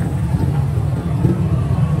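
City street traffic noise: a steady low rumble of passing vehicles, with faint voices in the background.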